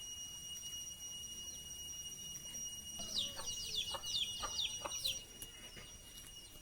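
A bird singing a rapid run of short, falling whistled notes for about two seconds midway. Under it runs a steady high-pitched whine.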